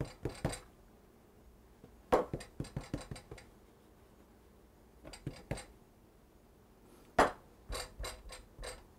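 Hands pressing and patting a small piece of pastry dough flat for a pie's top crust on a wooden tabletop, giving short clusters of soft taps and knocks on the wood with quiet gaps between them; the loudest knock comes about seven seconds in.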